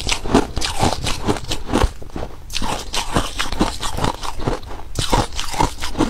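Close-miked crunching of crushed ice being chewed: a rapid, irregular run of crisp cracks and crackles.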